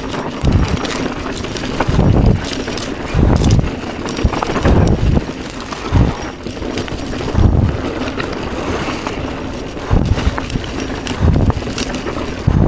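Mountain bike rattling and clattering down a rough dirt singletrack, with irregular low thuds about every second or so as the wheels drop over bumps.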